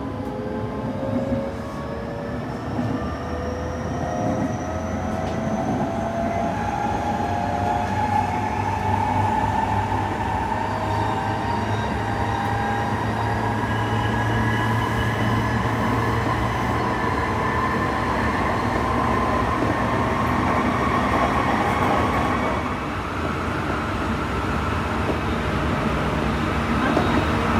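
Tsukuba Express TX-2000 series electric train heard from inside the passenger car. The traction motors' whine rises in pitch over the first ten seconds or so as the train picks up speed, then holds steady over the constant rumble of the running gear.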